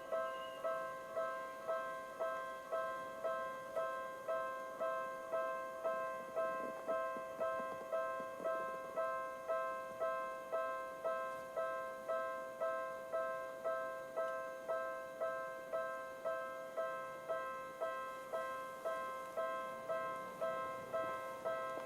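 Japanese railway level-crossing electronic alarm bell ringing in the Tokyu-type tone, its lower tone pitched low, striking steadily a little under twice a second.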